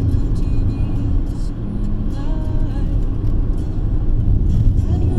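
Steady low rumble of a car in motion, with a few faint short tones about halfway through.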